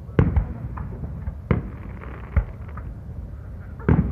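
Aerial firework shells going off in a string of sharp bangs over a low rumble. The loudest come about a quarter second in, at a second and a half, and near the end.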